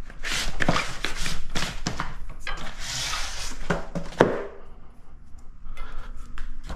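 Long cardboard shipping box rubbing and rustling as new Yakima round bars are slid out of it and handled, with scrapes and knocks of the bars. A single sharp knock comes about four seconds in.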